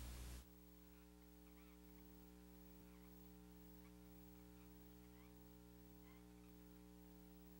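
Near silence: a faint, steady electrical hum made of several tones. A hiss cuts off about half a second in.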